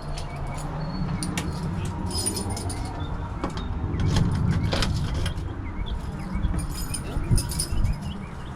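Keys jingling in two brief spells, about two seconds in and again near the end, over a steady low rumble.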